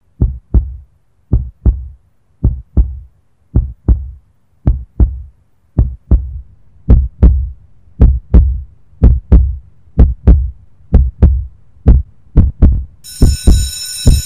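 Heartbeat sound effect: deep thumps in lub-dub pairs, about a second apart at first, quickening to nearly twice that pace. A steady hiss comes in near the end.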